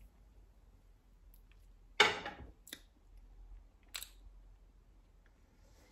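Handling noise: a sudden knock with a short rustle about two seconds in, then two faint clicks.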